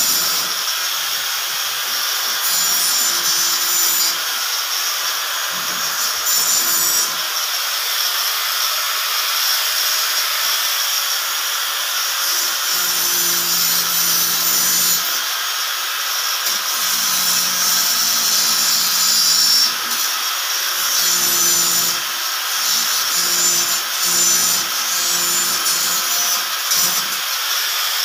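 Corded electric drill with a hole saw cutting a round hole through a ceiling board: a continuous loud, gritty cutting hiss, with the drill motor's hum coming and going as the pressure changes.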